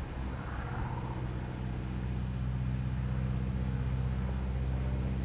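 Agricultural airplane's propeller engine running steadily overhead, a low even hum that grows louder as the plane comes closer.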